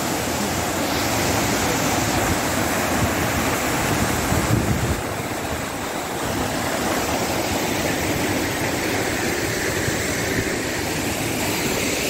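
Waterfall rushing steadily close by, with some low wind rumble on the microphone.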